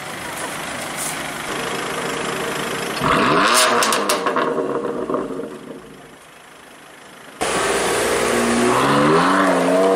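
BMW M4 GTS's twin-turbo straight-six engine running at low revs, then blipped hard about three seconds in, the pitch shooting up and falling away. About seven seconds in it comes back loud and the revs climb as the car pulls away.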